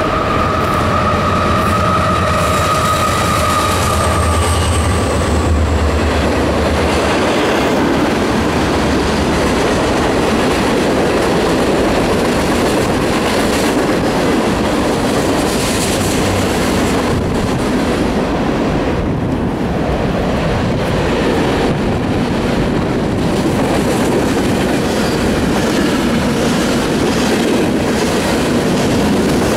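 Freight train passing close below: the diesel locomotive's low engine rumble with a steady high whine for the first several seconds, then the continuous rolling noise and wheel clatter of the freight cars going by.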